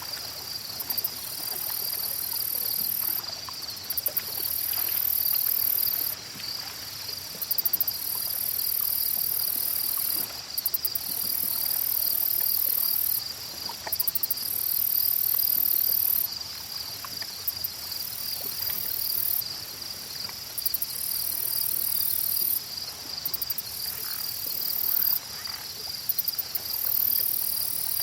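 Insects calling: a steady pulsing cricket-like trill runs throughout. Over it, a very high-pitched buzzing insect song comes in bouts of about two seconds, each starting with stuttering ticks, repeating about every three seconds.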